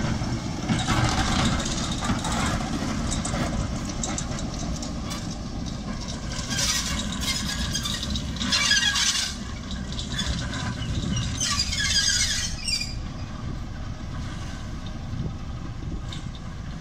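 Class 08 diesel shunter's English Electric six-cylinder engine running steadily as it hauls brake vans away. Four bursts of high-pitched metal-on-metal wheel squeal sound over it, about 1, 7, 9 and 12 seconds in, the later two loudest.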